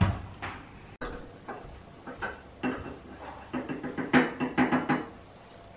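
Kitchen clatter of a small metal coffee pot, a cup and a spoon: a knock at the start, then scattered clinks and a quick run of ringing taps between about three and a half and five seconds in.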